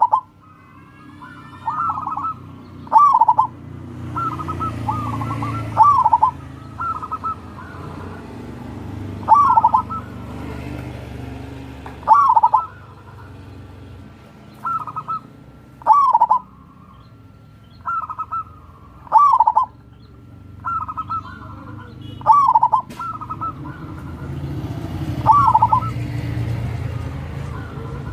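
Zebra dove (perkutut) singing: short phrases of soft cooing notes, repeated every two to three seconds. A low rumble swells twice in the background, with faint higher chirps.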